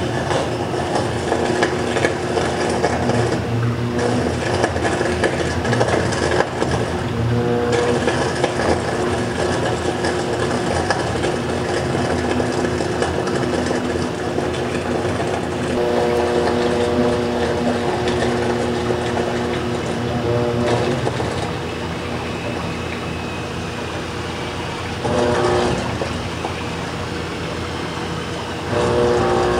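Portable DC metal disintegrator running, its electrode arcing into an aluminum rivet under coolant: a steady machine hum with a few held tones over a noisy crackle. The sound briefly steps up twice near the end.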